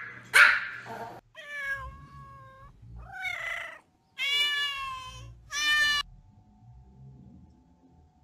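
A domestic cat meowing four times, the last two meows longest and loudest, after a single short dog bark right at the start.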